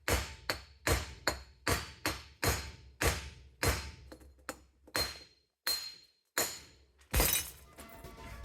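Glass being smashed by a run of sharp strikes, about two a second, each followed by a short ringing tail, ending in a longer, louder crash about seven seconds in.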